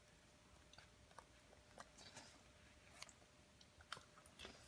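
Faint scissors snipping through a rubber swimming cap: a few soft, irregular clicks of the blades in near silence.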